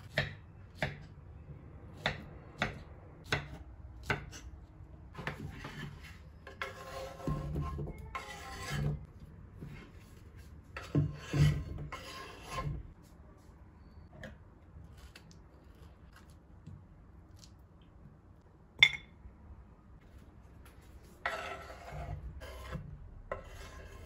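Knife cutting peaches, with sharp clicks against a wooden cutting board, then chopped peach pieces scraped off the board into a pan in several rasping strokes. One loud knock about three-quarters of the way in.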